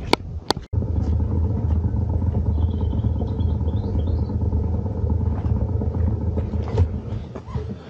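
Suzuki V-Strom 650's V-twin engine idling steadily, coming in about a second in after two sharp clicks.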